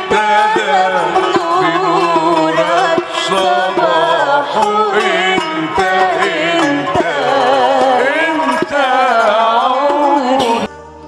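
Arabic tarab music: a woman's voice sings an ornamented, wavering melody over an ensemble with percussion. It cuts off abruptly near the end.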